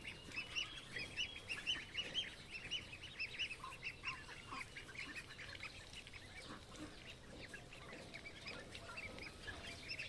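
A flock of young Magpie and Indian Runner ducks peeping: many short high calls overlapping one another, busiest in the first half and thinning out later.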